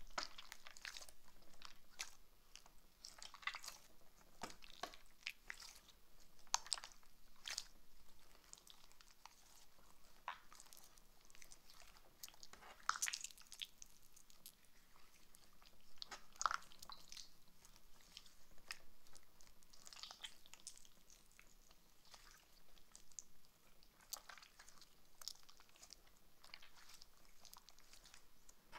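Slime being squeezed and pulled apart by hand: faint, irregular wet, sticky clicks and crackles, with a few louder pops.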